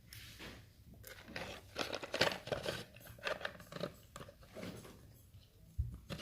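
Packaging of a pack of sugar-free chewing gum being handled and opened: a busy run of irregular crinkles and clicks, with a low thump near the end.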